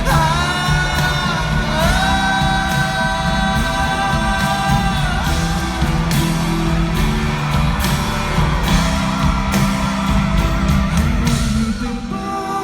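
Live rock band playing, with a male singer wailing long wordless held notes that bend in pitch over the music.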